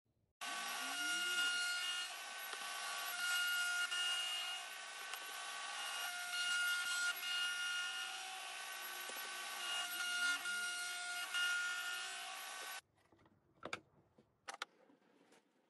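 Table-mounted router running with a bearing-guided roundover bit cutting along the edge of a wooden frame part: a steady motor whine with a noisy cutting sound that swells and eases as the bit bites. It stops abruptly about 13 seconds in, followed by a couple of faint knocks.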